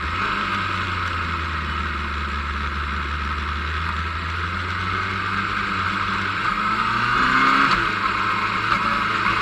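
Motorcycle engine heard from on board, running steadily under a constant rush of wind and road noise, then rising in pitch as it accelerates about two-thirds of the way through.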